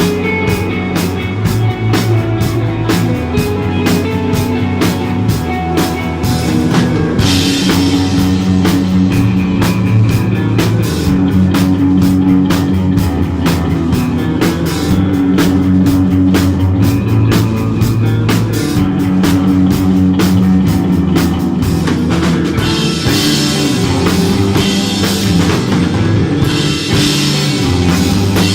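Instrumental desert rock played live by a band: electric guitar, bass and drum kit, with steady cymbal ticking over held bass notes. Cymbal washes swell about a quarter of the way in and again near the end.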